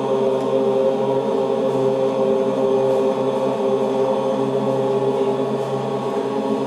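Chanting in steady, sustained held tones, filling the hall without a break.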